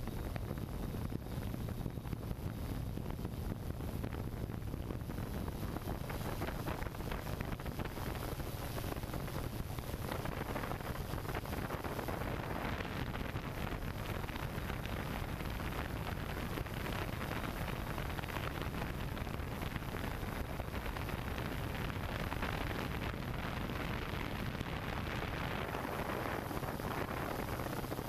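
Hexacopter drone in flight, heard from its own onboard camera: a steady rushing hum of the rotors with wind on the microphone and a constant low drone underneath.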